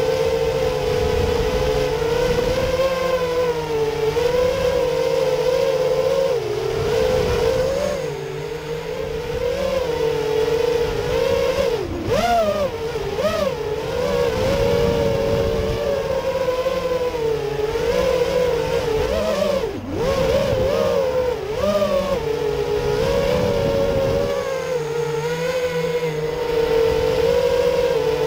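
Small FPV quadcopter's electric motors and propellers whining, the pitch wavering up and down with the throttle and dipping sharply then swooping back up twice near the middle. A low rumble of wind on the onboard microphone runs beneath.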